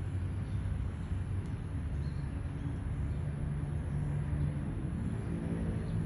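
Low steady rumble of a motor vehicle engine, with a pitched hum that grows stronger near the end.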